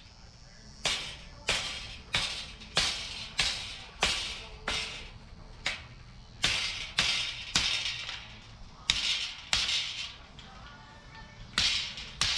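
Hammer blows struck one after another at a steady pace, a little under two a second, each a sharp hit with a brief ringing tail, pausing briefly twice. This is something being driven into hard, dry ground.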